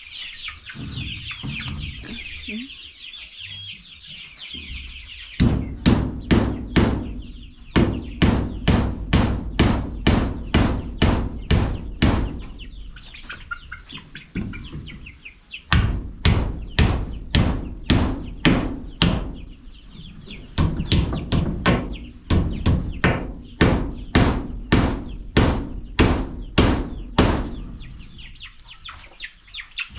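Hammer driving nails in three runs of steady blows, about two a second, while chicks peep continuously.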